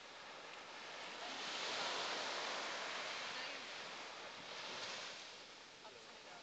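Small waves breaking and washing up the sand: a hiss of surf swells about a second in and slowly eases, then a second, smaller wash follows.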